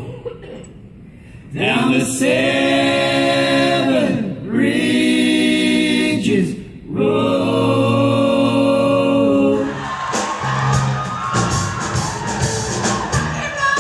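A group of men singing a cappella in close harmony: three long phrases of held chords with short breaks between them. About ten seconds in the singing stops, and a noisier sound with no clear pitch follows.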